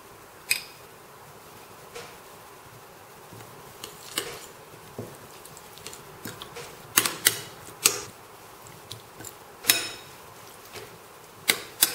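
A metal spoon clinking and scraping against bowls as chopped chilies are scraped in and a marinade is stirred: scattered sharp clinks, several close together about seven to eight seconds in, and two more near the end.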